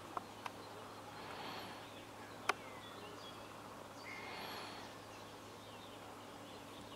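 Outdoor ambience with birds calling: short chirps, a falling whistle and two brief trilling spells. Several sharp clicks come in the first half, the loudest about two and a half seconds in.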